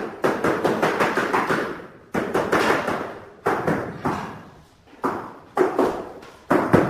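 Rapid tapping on tile during tile setting, in bursts of several taps a second that start sharply about every second and a half.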